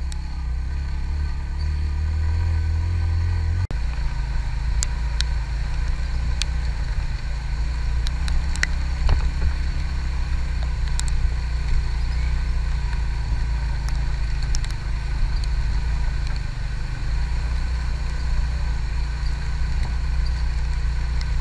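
Suzuki GS150 motorcycle's single-cylinder four-stroke engine running steadily while riding over a rough, rocky dirt track, with scattered sharp clicks and knocks over the engine sound.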